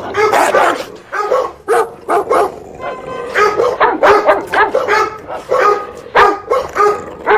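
A dog barking loudly and repeatedly, in quick runs of short barks with brief gaps between them.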